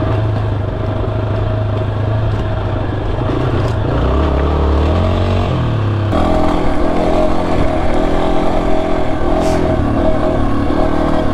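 Yamaha XT250's single-cylinder four-stroke engine running under way. Its pitch drops about four seconds in and then climbs again, and it pulls steadily after that.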